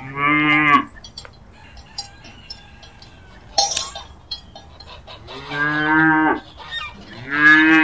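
Cow mooing three times: a short moo at the start and two longer moos near the end, with faint farm background and scattered short clicks in between.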